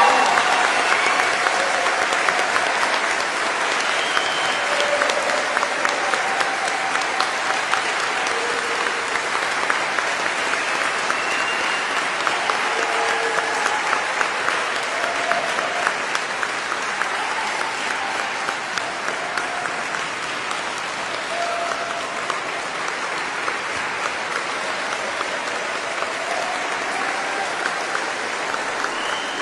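A large audience giving sustained applause, a standing ovation of many people clapping, slowly tapering off, with a few short whoops or calls over it.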